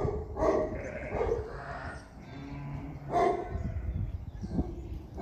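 A Turkish dog barking several times, a few seconds apart, at someone she does not recognise and takes for a stranger.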